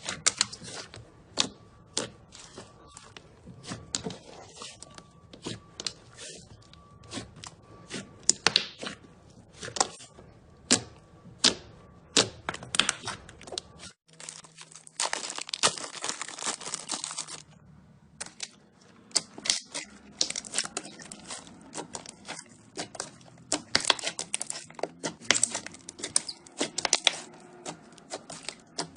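Slime being squeezed and pressed by hand, crackling and popping in many sharp clicks. About halfway through the sound cuts to another slime, with a few seconds of continuous crinkly crackle before the separate pops resume.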